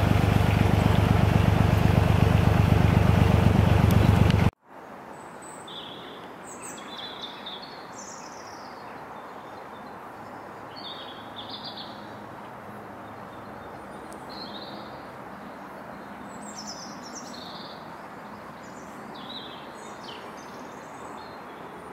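A narrowboat's engine running with a steady low throb that cuts off suddenly about four and a half seconds in. After that, small birds sing in short chirps and trills over a faint steady hiss.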